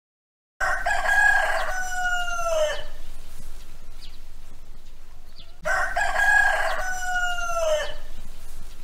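Rooster crowing twice, about five seconds apart. Each crow is one long call of about two seconds that drops in pitch at the end.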